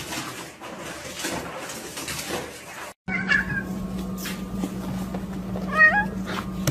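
A domestic cat meowing twice over a steady low hum: a short meow, then a longer, rising one shortly before the end. The first half holds an unrelated noisy, crackly sound.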